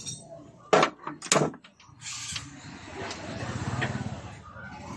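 A few sharp knocks about a second in, like tools being handled in a workshop, then a faint engine running underneath.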